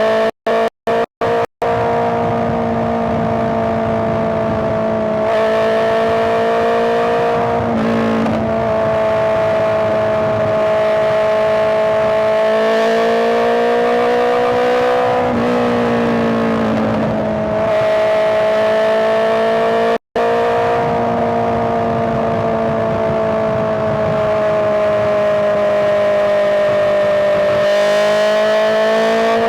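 Honda CBR650R's inline-four engine running at fairly steady revs, its pitch slowly rising and then dipping back several times as the revs change. The sound cuts out for a split second several times in the first second and a half, and once more about 20 seconds in.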